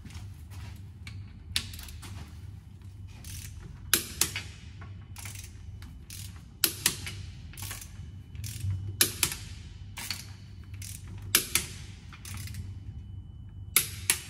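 Click-type torque wrench tightening car wheel bolts to 120 Nm, giving a sharp click, mostly a quick double click, about every two and a half seconds as each bolt reaches the set torque.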